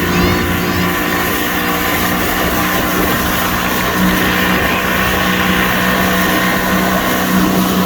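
Motorboat engine running at a steady speed, a constant hum with the rush of wind and water over it.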